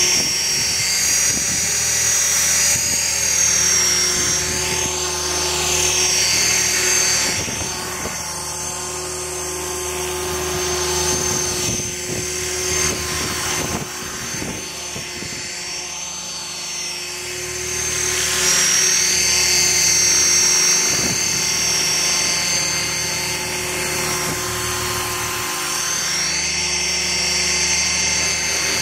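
Align T-Rex 500 electric radio-controlled helicopter flying: a high whine from the motor and gears over the whoosh of the rotor blades, the pitch wavering slightly and the sound swelling and fading as the helicopter moves nearer and farther.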